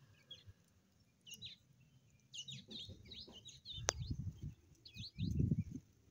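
Birds chirping in several quick runs of high, curving notes, with low muffled thumps about four seconds in and again near the end.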